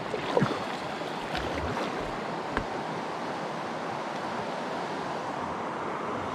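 River water rushing steadily over a shallow riffle around an inflatable packraft, with short paddle sounds about a third of a second in and again about two and a half seconds in.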